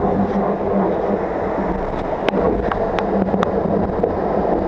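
Wind buffeting the microphone and water rushing past the hull of an ocean-racing sailboat driving through heavy seas at 15 to 20 knots, with a steady low hum underneath. A few sharp ticks come about halfway through.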